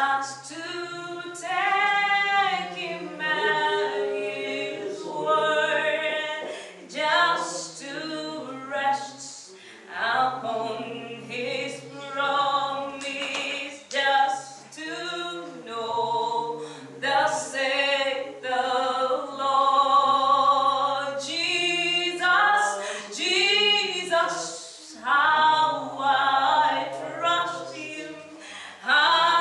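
A woman singing a worship song, with other voices singing along.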